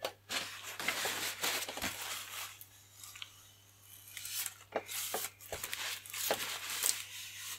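Paper towel rustling and crinkling as it is dabbed and wiped over a resin-wet fibreglass patch on a model glider wing, soaking up excess epoxy. It comes in two stretches of quick scrapes, with a short lull about three seconds in.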